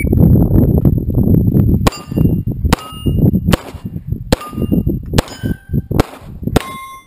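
Seven handgun shots fired at a steady pace, about one every 0.8 seconds, starting about two seconds in. Most are followed by the ringing clang of a steel target plate being hit. A loud low rumble runs underneath, heaviest before the first shot.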